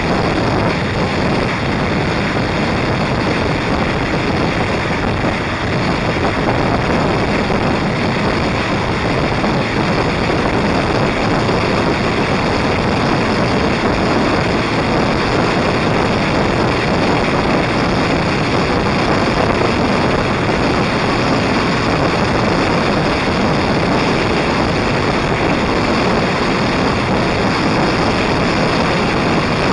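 Loud, steady rush of wind and riding noise from a motorcycle moving at a constant speed, with wind buffeting the microphone.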